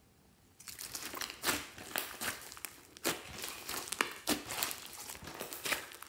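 Pink slime with small beads mixed in being squeezed, stretched and kneaded by hand, making dense crackling and crinkling with sharper pops and squelches. The sound starts about half a second in, with the loudest pops about one and a half, three and four seconds in.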